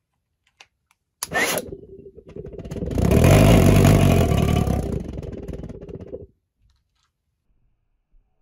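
Fuel vapour lighting off inside a mason-jar pulse jet model, with a sharp whoosh about a second in. The combustion then runs as a rapid fluttering rumble with a steady drone on top. It swells to a peak, fades and cuts off suddenly about six seconds in.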